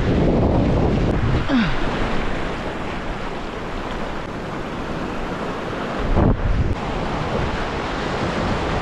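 Surf washing over reef rocks, with wind buffeting the microphone, heaviest in the first second or so; a brief louder surge comes about six seconds in.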